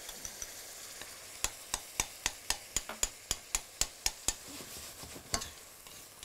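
Onions and canned peeled tomatoes sizzling in a hot stainless steel sauté pan while a metal spoon stirs and crushes the tomatoes. From about a second and a half in, the spoon clicks against the pan about four times a second for roughly three seconds, with one more click near the end.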